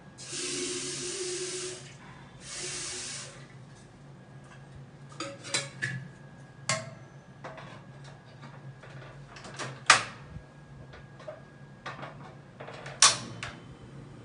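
Tap water running into a stainless steel kettle in two bursts, then a series of metal clanks and clicks as the kettle is handled on a portable gas stove, the loudest clank about two-thirds through. Near the end a sharp click as the stove's knob is turned and the burner lights.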